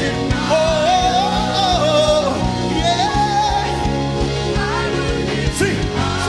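Gospel worship music: a singer holding long melodic lines with runs over a steady band groove with a regular beat.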